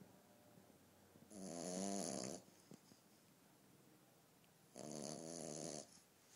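French bulldog puppy snoring in her sleep: two long snores about three and a half seconds apart, each lasting about a second.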